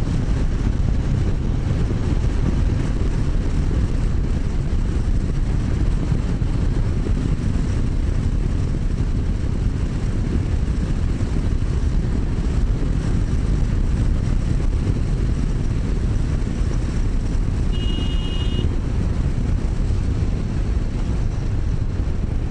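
Steady wind rush and engine and road noise from a motorcycle being ridden in traffic, with one short high-pitched beep about eighteen seconds in.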